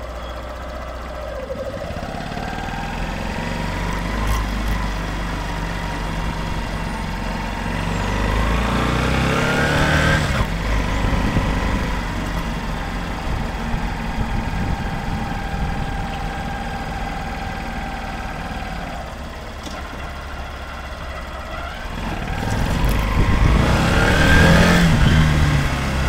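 Honda CBF125's single-cylinder four-stroke engine running and being revved: the pitch climbs slowly, falls back suddenly about ten seconds in, holds steady, then climbs again near the end. It carries the strange noise the owner cannot yet place.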